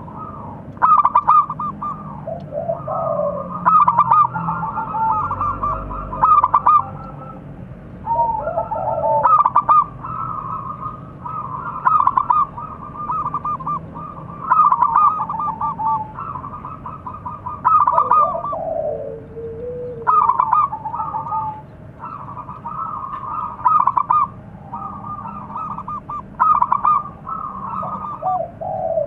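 Zebra dove (perkutut) cooing: rapid, staccato, trilled coo phrases repeated roughly every two to three seconds, with softer lower notes between them.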